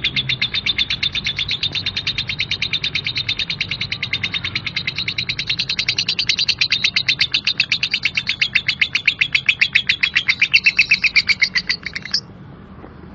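Lovebird ngekek: a long, rough chattering trill of rapid, evenly repeated harsh notes, kept up without a break and cutting off about twelve seconds in.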